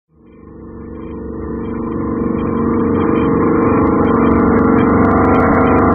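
Intro sound effect: a low, humming drone that swells in from silence over the first three seconds and then holds steady, with sharp crackling clicks on top from about halfway through.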